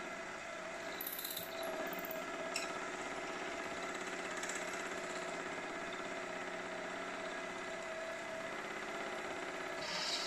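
Milling machine spindle running steadily while a twist drill bores the way-rod hole through a small metal bracket casting, with a short tick about two and a half seconds in.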